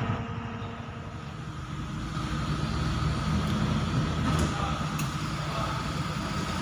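An engine running with a steady low rumble, with two faint clicks a little past halfway.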